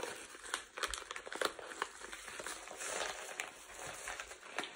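Paper mailer envelope crinkling and rustling in irregular bursts with small clicks and crackles, as it is handled, opened with a box cutter and its contents pulled out.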